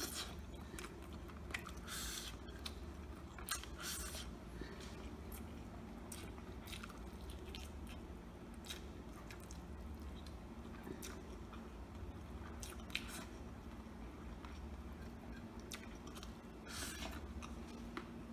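A person chewing and biting breaded fried chicken close to the microphone: many short wet mouth clicks, with a few louder crunchy bites at the start, about two and four seconds in, and near the end.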